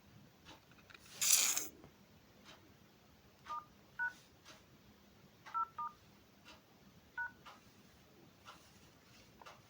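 Phone dialer keypad tones on a Samsung Galaxy M32: five short two-note beeps, unevenly spaced, as keys are pressed. A brief loud rustle comes about a second in.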